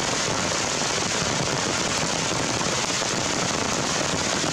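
Steady, dense crackling hiss at an unchanging level, with no rhythm or clear tone.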